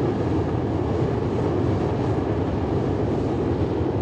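Space Shuttle Main Engine, a liquid-hydrogen and liquid-oxygen rocket engine, firing in a static test-stand run. It makes a loud, steady, deep rumbling noise that does not change.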